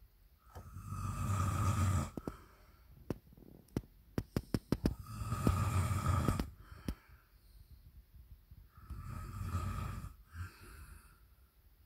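Loud snoring: three long snores about four seconds apart, each lasting about one and a half to two seconds. A quick run of sharp clicks falls between the first and second snores.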